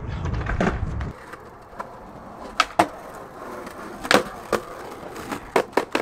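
Skateboard wheels rolling on concrete with a low rumble, which stops about a second in. Then come several sharp clacks of the board hitting concrete and a curb, two close together past the two-second mark, a loud one around four seconds, and more near the end.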